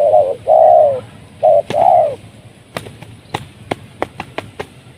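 Spotted dove cooing: two phrases, each a short note followed by a longer falling coo, then about eight sharp claps over the next two seconds.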